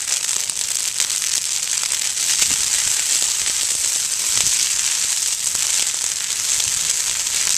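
Brush fire crackling steadily as flames burn through yucca clumps and shrubs in a prescribed burn: a dense, continuous crackle of many small pops.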